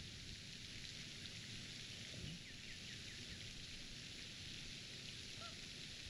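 Steady outdoor background hiss and low rumble, with a short run of faint bird chirps about two seconds in and a single brief call near the end.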